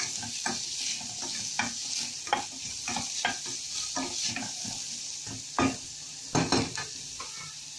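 Diced onion frying in oil in a stainless steel pot, sizzling steadily, while a wooden spoon stirs and scrapes against the pot in short strokes. A few louder knocks of the spoon on the pot come past the middle.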